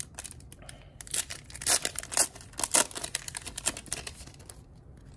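Plastic-foil trading-card pack wrapper torn open and crinkled by hand: a quick run of crackly rips and crinkles about a second in, easing off near the end.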